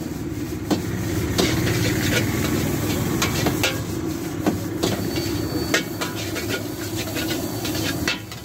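A metal spatula scraping and clanking against a steel wok as fried rice is stirred and tossed. There are repeated sharp knocks, one or two a second, over a steady low rumble from the gas burner, and they stop near the end.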